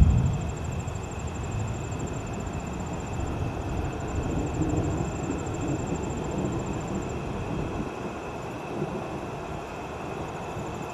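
Distant thunder rumbling: a low rumble that is loudest at the very start, dies down within about a second, and then goes on as a quieter low rolling rumble.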